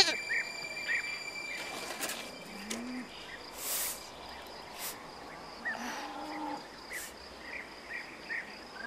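Rural ambience: a steady high insect drone with scattered short chirps and a few brief hisses.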